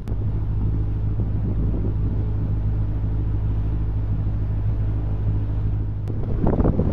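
A boat's engine running at a steady speed, an even low drone. Wind buffeting the microphone comes back near the end.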